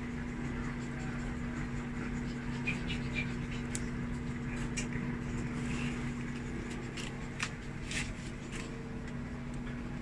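Midea front-load washing machine's drain pump humming steadily as it drains the tub, with a few faint clicks. The machine is auto-draining on its own, a fault the owner traced to a failed water level sensor (pressure switch).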